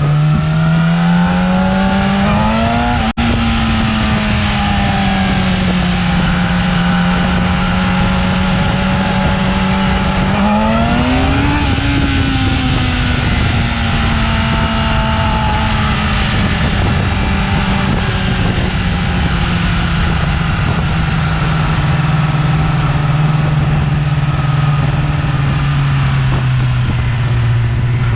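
Yamaha R6 inline-four engine on its stock exhaust, revving up twice and easing back down slowly each time, then settling to a steady lower note. There is a momentary dropout in the sound about three seconds in.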